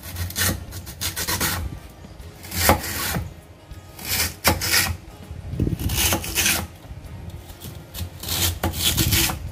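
Kitchen knife slicing a peeled lotus root into thin rounds on a cutting board: a crisp rasping cut with each stroke, one slice every second or two.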